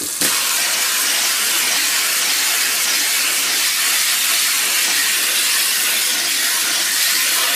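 Kitchen faucet running steadily, water pouring into the sink onto a plastic computer lid. The flow comes up louder just after the start, then holds an even hiss.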